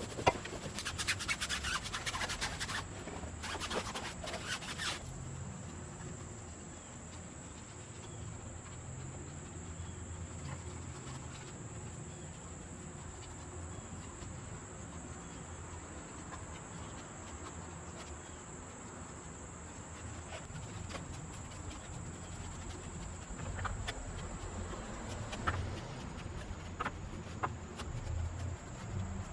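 Wheel and tire detailing sounds: several short hissing bursts in the first five seconds, then a soft, steady rubbing over a low rumble, typical of a brush scrubbing a tire or wheel.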